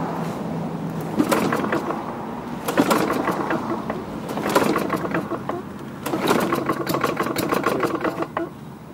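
Tecumseh 4.5 HP four-stroke engine on a Lawn-Boy mower being pull-started, cranking over in four pulls with short pauses between, the last one running on a little longer. It does not settle into a steady run: the engine is reluctant to start.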